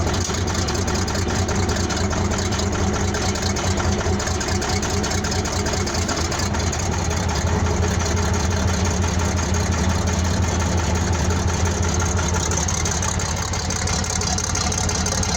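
1970 Case 1150 crawler dozer's diesel engine idling steadily.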